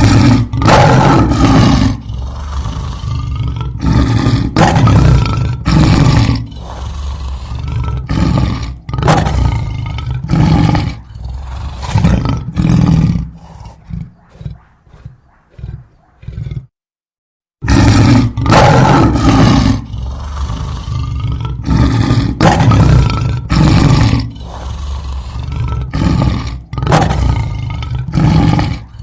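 Lion roaring: a run of deep roars and grunts, repeated every second or two. It cuts to dead silence for about a second a little past the middle, then the roaring starts again.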